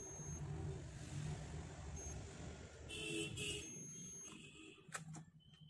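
A low engine rumble from a motor vehicle, then, from about three seconds in, a digital multimeter's continuity buzzer beeping in several short, broken bursts as the probes touch points on the printer's power-supply board. There are a couple of sharp clicks near the end.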